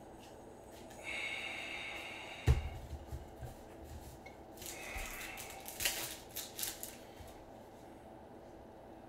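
Baseball cards and a foil card-pack wrapper handled in nitrile-gloved hands: rustling and crinkling, a sharp thump about two and a half seconds in, and a quick run of clicks around six seconds.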